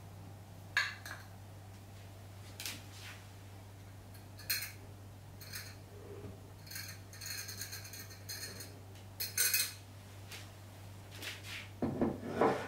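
Glass clip-top jar and glass mixing bowl clinking as flour is poured from the jar into the bowl. There are scattered sharp clinks, a ringing rattle about seven to eight seconds in, and a duller knock near the end.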